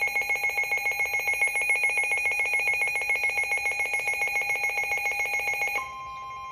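Midland WR-400 and WR-300 NOAA weather radios sounding their electronic alert alarm, a rapid pulsing warble of beeps, as a Flash Flood Warning comes in. Near the end the beeping stops and a single steady alert tone takes over.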